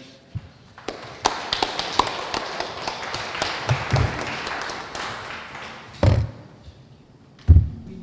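Audience applauding, many hands clapping together and dying away after about five seconds. Several dull thumps follow, the loudest just before the end.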